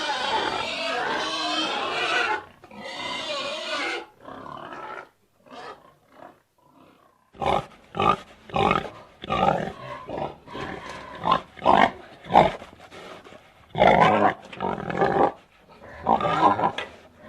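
Pigs squealing loudly for the first few seconds. After a short lull they give a string of short grunting calls, about two a second.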